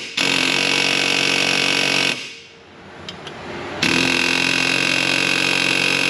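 Pneumatic air chisel hammering at the rivets that hold a ball joint to a lower control arm, trying to knock the rivet heads off. It runs in two long, steady bursts: about two seconds, a pause of under two seconds, then about three seconds more. The rivets hold fast.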